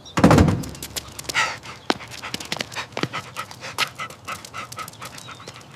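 A dog panting quickly and steadily, with a loud low thud just after the start.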